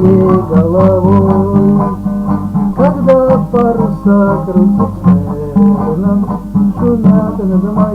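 Acoustic guitar strummed in a steady rhythm, with a man's voice singing a melody over it.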